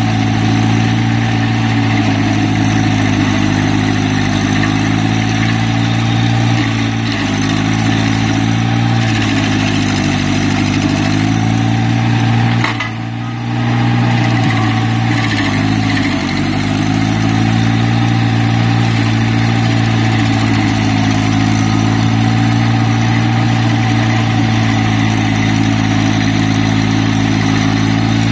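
Carlton SP4012 stump grinder's 65 hp replacement engine running hard while the cutter wheel grinds into a stump. The engine note sags and recovers several times as the wheel bites, with a brief drop in loudness about 13 seconds in.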